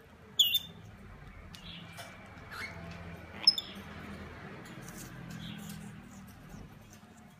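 Two short, high squeaks from a caged parrot, about half a second in and again about three and a half seconds in, with faint clicks between as the birds pick at a piece of fruit.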